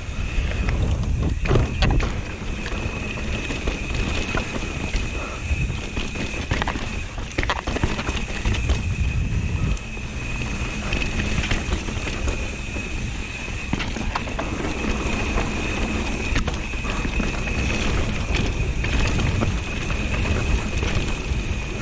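Mountain bike descending a dirt and rock trail: tyres rolling and the bike rattling over bumps, with knocks about a second and a half in and again around seven seconds, heavy wind buffeting on the microphone, and a steady high-pitched whine throughout.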